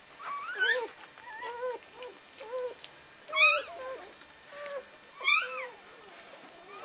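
Newborn Irish setter puppies crying: a run of short, high, squeaky cries that rise and fall in pitch, the loudest about three and a half and five seconds in.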